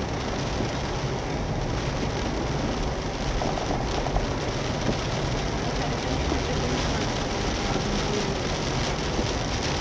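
Heavy rain falling on a stopped car's roof and windscreen, heard from inside the cabin as a steady, even hiss, with a low steady hum underneath.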